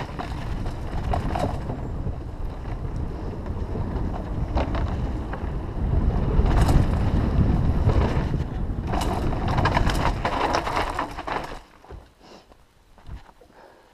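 Wind buffeting the camera microphone and tyres rolling on dirt as a mountain bike rides fast down a forest trail, with sharp rattles and knocks from the bike going over bumps. Near the end the rumble drops away sharply.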